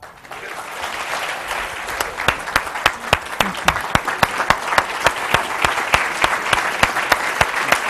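Audience applauding, swelling over the first two seconds into steady applause, with one nearby pair of hands clapping sharply about three or four times a second from about two seconds in.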